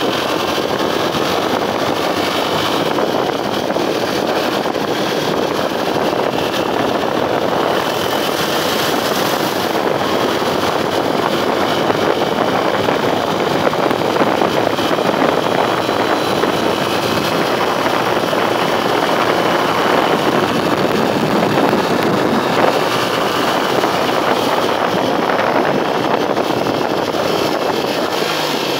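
Steady wind noise on the microphone of a motorcycle moving at road speed, with its engine and tyre noise running underneath.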